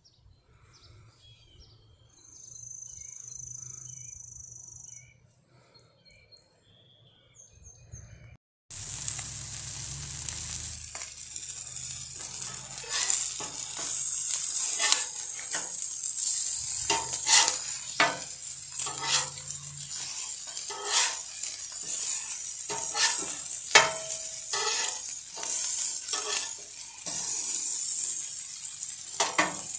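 Faint bird chirps, then from about nine seconds in, hamburger patties sizzling on a hot flat-top griddle, with repeated sharp scrapes and taps of a metal spatula on the steel.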